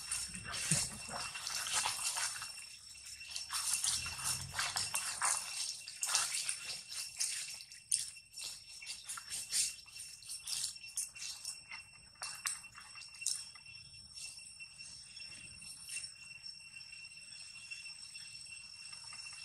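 Rustling and crackling in grass and dry leaves, dense at first and thinning out after about twelve seconds, over a steady high-pitched ringing.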